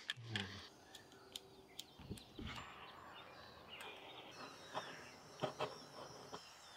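Faint outdoor background with a few light, scattered clicks and knocks.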